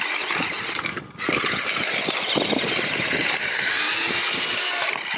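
Remote control car's electric motor and gears whirring as it drives at speed. The whir cuts out for a moment about a second in, then runs on steadily.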